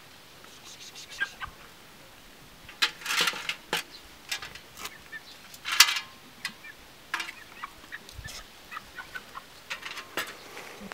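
Chickens clucking in short, scattered calls, mixed with the clinks and clatter of metal bowls being handled and set down on rock, loudest about three seconds in and again near six seconds.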